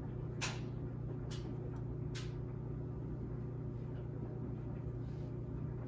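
Three sharp clicks in the first two seconds or so, a spoon knocking against a ceramic bowl of mashed potatoes as it is dug in, over a steady low hum.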